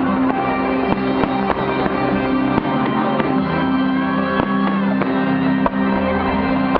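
Music playing throughout with sustained notes, over fireworks shells bursting and crackling in many sharp bangs.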